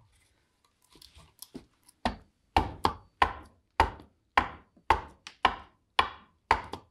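Bowl adze chopping into green black walnut in short, regular strokes about two a second, starting about two seconds in, each a sharp chop as the blade follows the shaving down into the bowl hollow.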